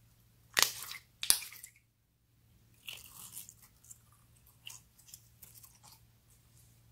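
Clear slime squeezed and stretched between the fingers, giving two loud sticky crackling bursts near the start, then a run of softer pops and clicks as it is worked.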